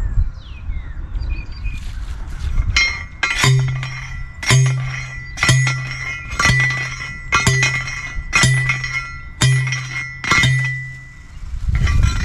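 A hand post driver pounding a steel fence post into the ground: a steady series of sharp metallic clanks, about one a second, each ringing briefly.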